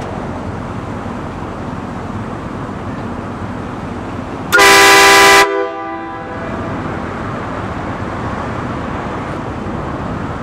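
Truck-mounted air train horn, fed by a 12-volt compressor and a 6-litre air tank, sounds one very loud blast of about a second: several trumpets together in a chord, cutting off sharply with a brief fading tail. Steady background noise runs before and after it.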